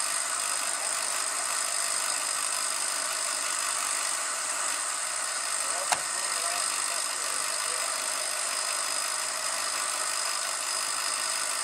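A single sharp metal click about six seconds in as a tow cable's hook is fastened at a pickup's front bumper, over a steady hiss-like background.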